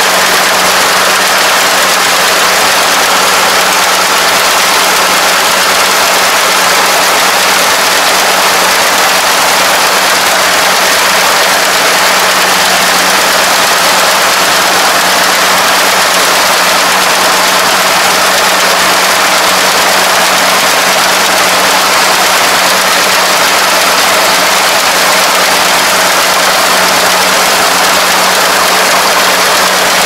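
Combine harvester's engine running steadily: a loud, even drone with a constant low hum.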